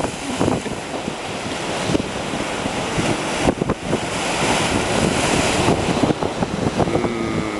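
Sea waves breaking and washing over a rocky shore, mixed with wind buffeting the microphone.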